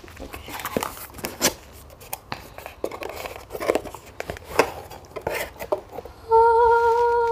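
Mug's cardboard box being opened by hand and the mug pulled out of its packaging: a run of small rustles, scrapes and clicks. Near the end a voice holds one steady note for about two seconds, the loudest sound here.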